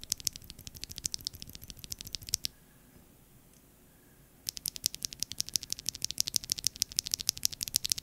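A mechanical keyboard tactile switch pressed rapidly by hand close to the microphone: a quick run of sharp plastic clicks, around ten a second, a short pause, then a second run.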